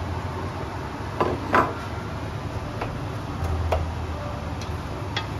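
Wooden spoon and a small bowl knocking against an enamel pot as food is tipped in and stirred: a handful of separate knocks, the loudest pair about a second and a half in, over a low steady hum.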